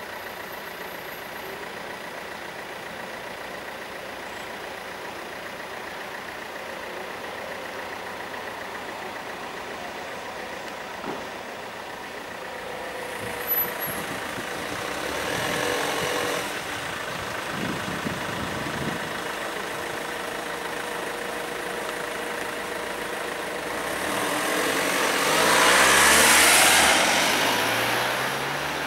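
Level-crossing warning bell sounding steadily while the barriers are down. A vehicle passes close by and grows loud near the end, its pitch falling as it goes.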